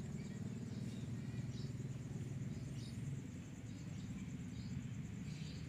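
Outdoor yard ambience: a steady high insect drone with scattered short chirps of small birds over a low steady hum. The rooster itself does not crow.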